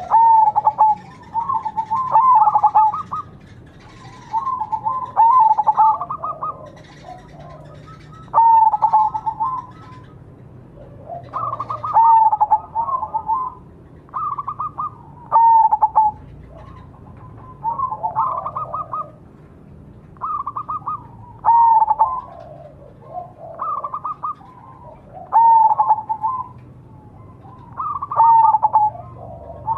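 Zebra dove (perkutut) cooing repeatedly. Each short phrase is a run of quick, stuttering, pitched coos, and the phrases come about every two seconds.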